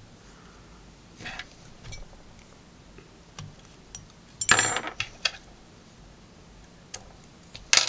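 Small clicks and light metallic clatter of fly-tying tools and fingers handling thread at the vise, with a few scattered ticks and one louder clatter about four and a half seconds in.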